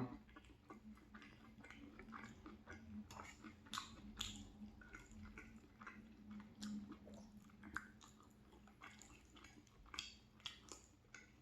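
Close-up chewing of thick, creamy macaroni and cheese: soft, irregular wet mouth clicks and smacks.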